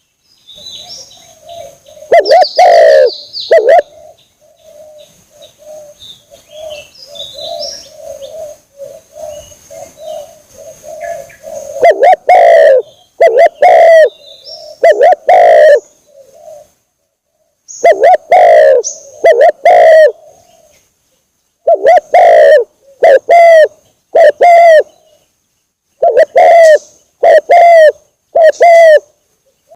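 Spotted dove (tekukur) cooing over and over, a loud lure call for trapping: short, deep coo phrases in quick runs, with a softer rolling coo in between from about 4 to 12 seconds in. Faint high chirps sound early on.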